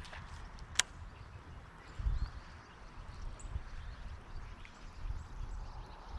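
Outdoor pond-side ambience: low rumbling that swells about two seconds in, one sharp click a little under a second in, and a few faint, short bird chirps.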